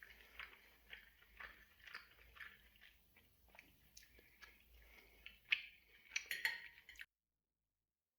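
A person chewing food, soft crunchy chews about twice a second, with a few sharper, louder clicks near the end. The sound cuts off abruptly about seven seconds in.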